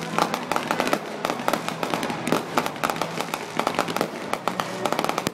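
Fireworks display: aerial shells bursting in a rapid, irregular run of crackles and pops.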